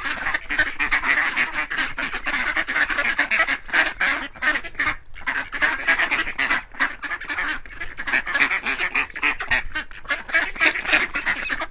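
A flock of ducks quacking, a dense clamour of many overlapping calls that cuts off abruptly at the end.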